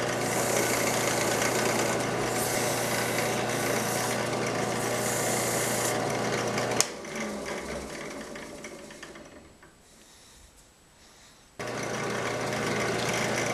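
Drill press motor running with a steady hum while fine 2000-grit sandpaper is held still against the spinning steel music-wire rod, giving a hiss of rubbing for the first six seconds. About seven seconds in there is a click and the motor winds down to near quiet, then starts again abruptly near the end.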